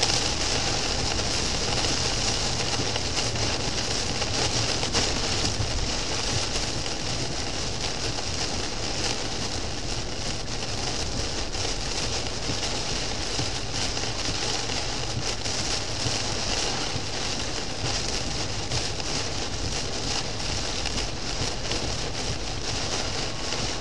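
Torrential rain beating on a car's roof and windshield, heard from inside the cabin, over a steady rush of tyres on a flooded road. The noise is loud and even throughout, with a dense patter of drops.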